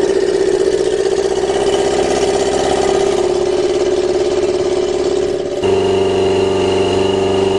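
Yamaha 650 motorcycle engine in a dune buggy idling steadily through its custom stainless steel exhaust, still cold and being left to warm up. About five and a half seconds in, the engine note changes abruptly.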